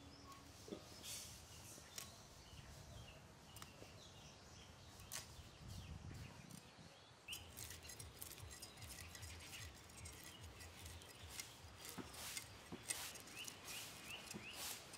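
Fish being scaled by scraping it against a boti, the upright blade of a Bengali fish-cutting block: from about halfway through, a quick run of short rasping scrapes. Faint bird chirps throughout.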